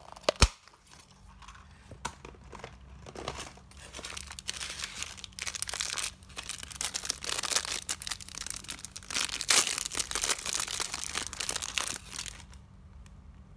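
Crinkly plastic wrapper being torn and pulled open by hand, a dense crackling rustle that stops shortly before the end. A single sharp click comes about half a second in.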